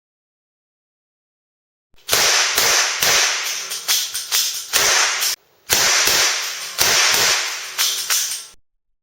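Nagant M1895 model revolver firing caps: a rapid string of a dozen or more sharp cracks, with a short break about halfway through.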